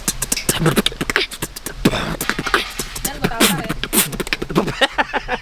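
Human beatboxing: rapid mouth percussion of clicks and snare-like hits, mixed with short pitched vocal glides.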